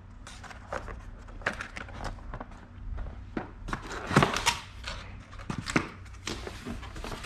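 Packaging being handled while unboxing: irregular rustling, with clicks and knocks, the loudest handful about four seconds in.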